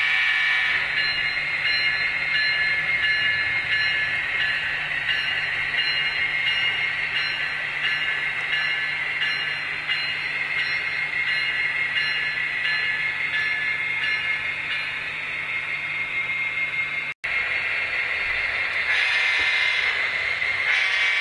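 Model train running on a layout's track: a steady mechanical hum with high, constant tones. The sound cuts out for an instant near the end.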